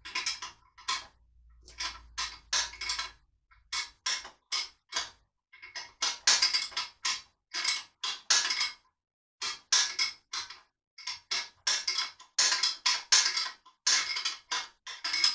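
Background music with a choppy, percussive electronic beat.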